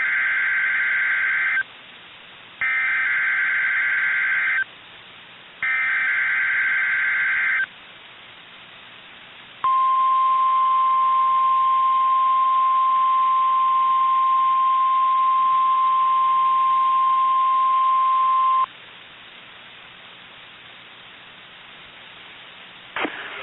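NOAA Weather Radio Emergency Alert System activation: three bursts of SAME header data, each a harsh electronic warble about two seconds long with a second's gap between them, then the 1050 Hz warning alarm tone, one steady high tone held for about nine seconds. It is sounded here for a test of the alarm system.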